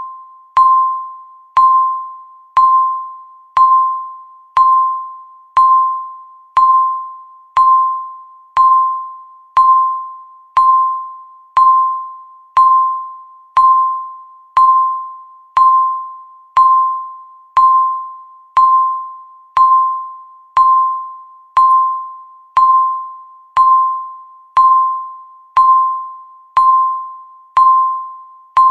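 Countdown timer beep sounding once every second, one for each second left: a single bell-like tone that starts sharply and fades away before the next, repeating evenly.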